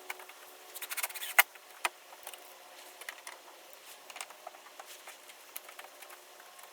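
Scattered light clicks and rattles of small hard objects being handled, with one sharp click about a second and a half in.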